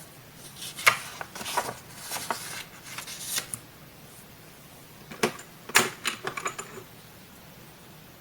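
Close-miked paper crafting: sharp snips, clicks and crinkles of scissors and paper in two short runs, the first about half a second in and the second about five seconds in.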